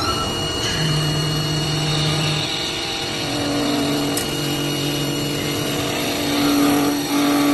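CNC wood lathe running: a steady motor hum and whine over the rushing noise of the cutter shaving a spinning wooden blank. The low hum tones shift pitch a few times.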